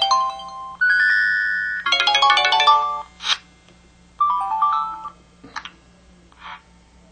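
MS550 mobile phone's built-in effect sounds previewed one after another: several short electronic chimes and jingles, a held tone and a quick rising run of notes, with a few brief clicks between them.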